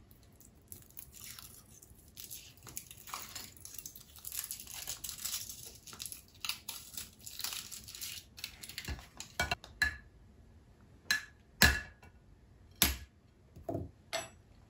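Foil wrapper of a Kinder Surprise egg crinkling and tearing as it is unwrapped, followed in the second half by a series of separate sharp clicks and knocks.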